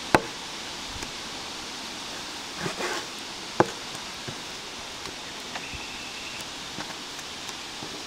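Cleaver-style knife cutting through lamb and knocking on a plastic cutting board: two sharp knocks about three and a half seconds apart, with a few lighter taps and handling rustle between them, over a steady outdoor hiss.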